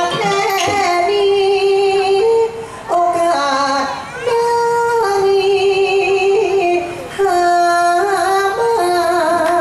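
A solo voice singing a Thai likay song in long held notes that step from pitch to pitch, pausing for breath twice.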